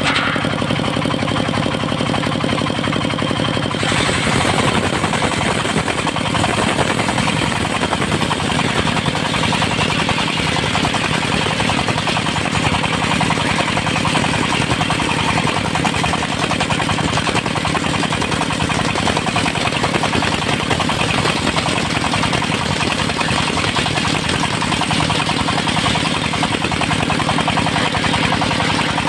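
Engine-driven portable circular sawmill running steadily. About four seconds in, its blade starts cutting through a teak log, adding a loud, dense hissing rasp over the engine that holds as a thin board is sawn off and drops away right at the end.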